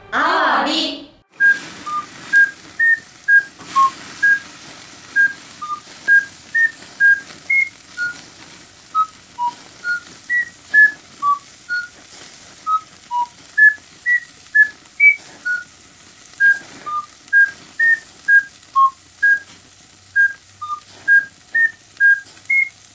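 A tune whistled in short, separate notes, about two a second, the pitch hopping up and down. A brief loud sound comes just before the whistling starts.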